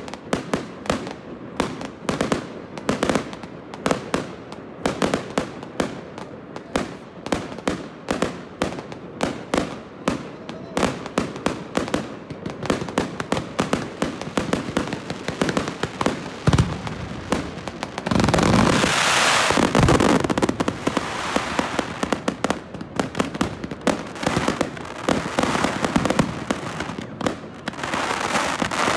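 Fireworks crackling fast and densely as comets with crackling tails rise. A single low thump comes about two-thirds of the way through, followed by a louder, fuller wash of crackle and bursts, which swells again near the end.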